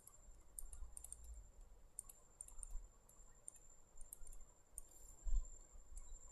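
Light, irregular clicks and taps of a stylus writing on a pen tablet, with a faint steady high whine underneath.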